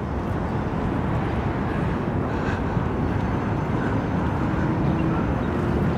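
Steady noise of city road traffic on the road below, mixed with wind rumbling on the microphone.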